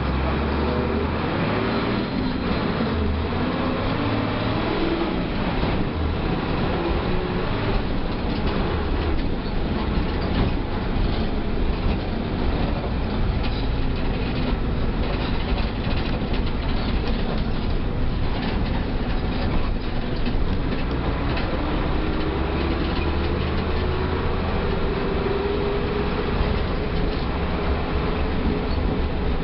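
Mercedes-Benz OF 1318 bus engine running steadily under way, its pitch slowly rising and falling, with rattling and clatter from the bus body.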